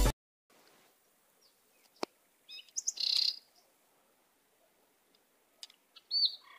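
Birds chirping in a few short, high calls, a cluster about two and a half seconds in and another near the end, with one sharp click about two seconds in.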